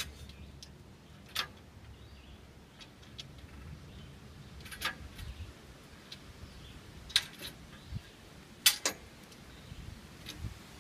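Scattered sharp metallic clicks and taps as a solar panel and its bolts are handled against an aluminium roof-rack frame, about five clicks, the loudest late on.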